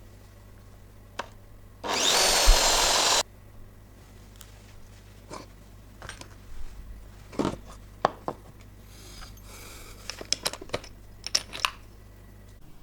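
A small power tool works on a metal bracket in one loud burst of about a second and a half, its motor whining high, followed by scattered clicks and knocks of metal parts being handled.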